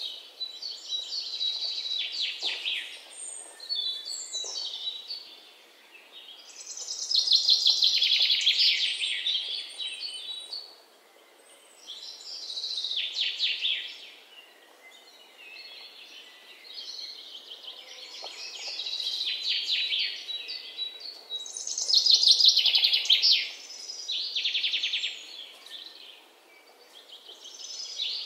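Birds singing: high, trilled phrases of fast repeated notes, each lasting a second or a few seconds, recurring every few seconds. The loudest phrases come about a third of the way in and again near three quarters.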